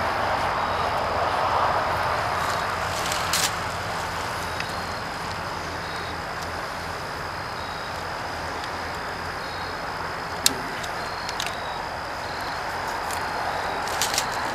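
Light clicks and taps as a folded wooden bucksaw is handled and its tie strings are undone, with one sharper tap about ten seconds in, over a steady background hiss and low hum.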